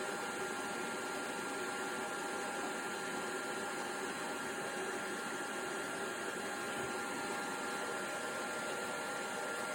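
Cheap stick welder running as a constant-current power supply under a high-current load: a steady whir with a few faint steady whining tones.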